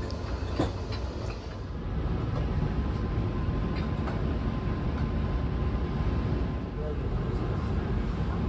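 Carriage interior noise of the Rokumon tourist train: a steady low rumble of the running train. It grows a little louder about two seconds in.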